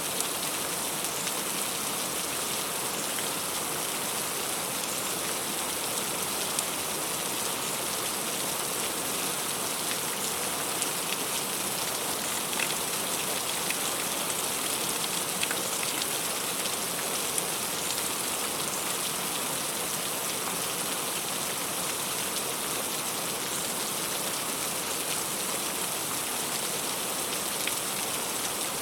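Heavy rain falling steadily, an even wash with a few louder single drops ticking through it.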